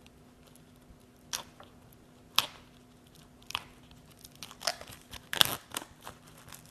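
Cellophane shrink-wrap being torn and peeled off a CD case: scattered sharp crinkles and crackles, with the loudest cluster about five and a half seconds in.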